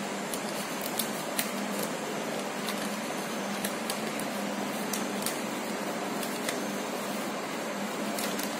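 Newspaper crinkling in short, scattered crackles as it is folded and pressed by hand, over a steady background hum.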